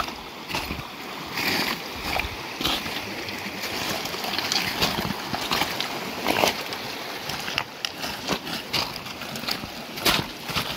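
Irregular footsteps of hiking boots crunching and clattering on loose moraine rock, with trekking poles tapping the stones and a small meltwater stream running.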